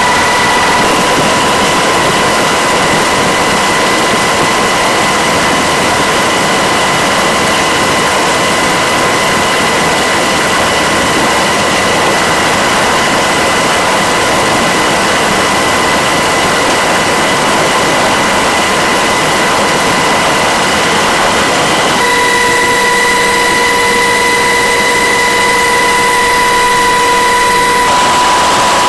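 Loud, steady aircraft engine noise with a constant high whine, as heard from aboard the filming aircraft; the whine's pitch mix changes abruptly about 22 seconds in and again near the end.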